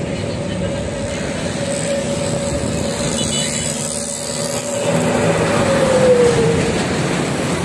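Road traffic with a heavy truck approaching and passing close by: its engine and tyre noise swell to a peak about six seconds in, and a steady whine drops in pitch as it goes past.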